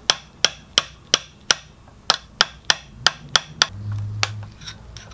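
Hammer tapping a pin punch to drive in the pin that locks a K-Miata selector joint onto a BMW transmission's selector rod: about a dozen sharp metal-on-metal taps, roughly three a second, with a short pause partway through.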